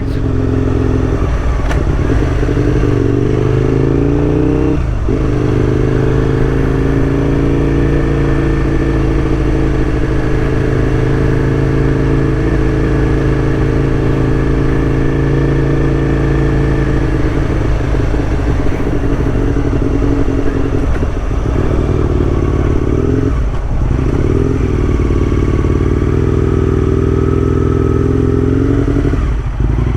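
Aprilia RSV1000's 60-degree V-twin running under way, the engine note climbing as it pulls. Brief dips at the gear changes come about five seconds in, again after twenty-odd seconds, and near the end.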